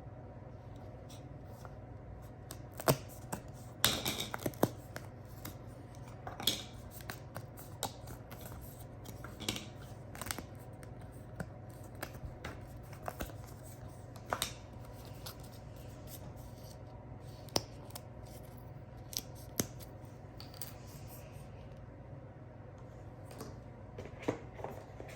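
Board game pieces being unpacked and handled: scattered clicks, taps and short rustles of cardboard and plastic, busiest about four seconds in, over a steady low hum.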